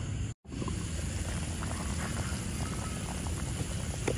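Fish broth at a rolling boil in an open wok: a steady bubbling with many small pops. There is a brief dropout about half a second in, and a sharper pop or tap near the end.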